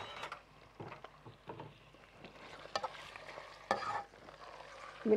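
Chunks of meat frying in a spoonful of oil in a pot with a quiet sizzle, while a spoon stirs and turns them, scraping against the pot a few times.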